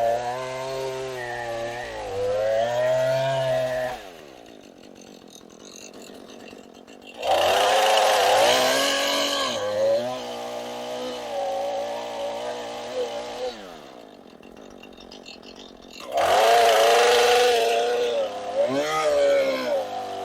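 Two-stroke chainsaw working through log sections at full throttle. Twice it drops back to a low idle for a few seconds and then revs up again.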